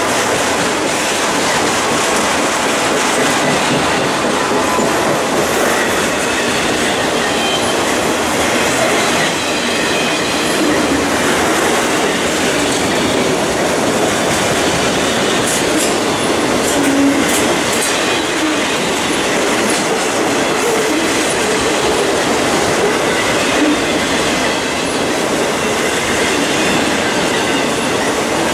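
Autorack freight cars rolling past close by: a steady rumble of steel wheels on rail, with clicks and clatter as the wheels run over the rail joints, loudest about halfway through, and a faint high wheel squeal.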